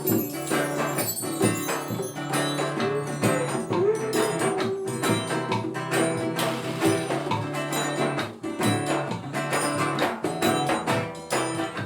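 Reggae band playing an instrumental passage between sung verses, with a steady beat and no vocals.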